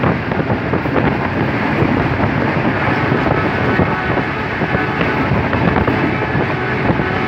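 Steady rumble of a Pakistan Railways passenger coach running at high speed, heard from inside the coach: wheels running on the rails with a faint rattle.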